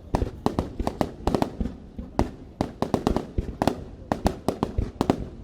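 Display fireworks going off in rapid, irregular succession, about four or five sharp bangs a second, each trailing a short echo.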